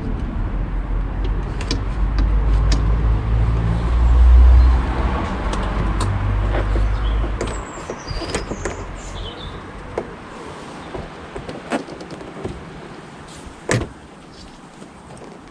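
Hand work on a car door's interior: a low rumble for the first seven seconds or so, then scattered light clicks and knocks, with one sharper click near the end.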